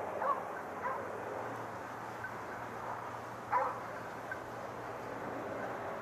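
A boar-hunting dog barking: three short barks, the last and loudest about three and a half seconds in, over a steady background hiss.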